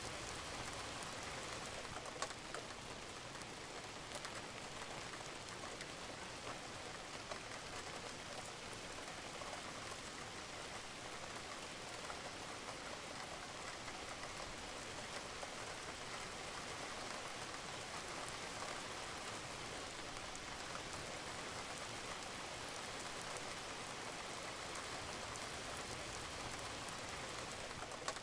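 Steady rain falling on a roof, an even hiss with scattered drop taps and an occasional louder drip.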